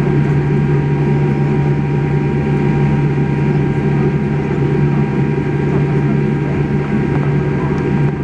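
Steady cabin hum inside a Boeing 787 Dreamliner taxiing on low engine power, with faint steady whine tones above the low drone.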